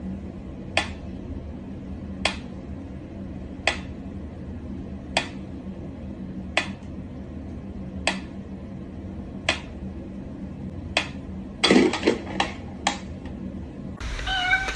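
A sharp click repeating evenly about every second and a half, then a louder knock and a quick run of three clicks near the end, over a steady low hum.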